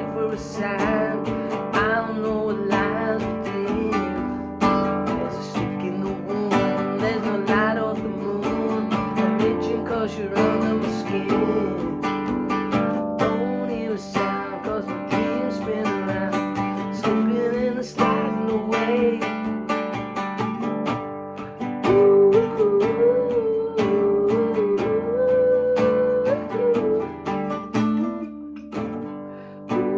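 Guitar music: fast plucked notes over sustained chords, with a wavering melody line above them. It thins out briefly near the end.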